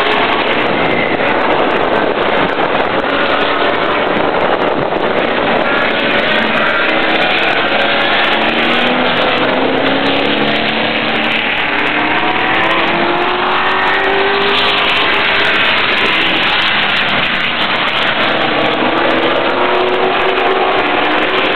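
Late model race car V8 engines running practice laps, their pitch rising and falling repeatedly as they accelerate and lift.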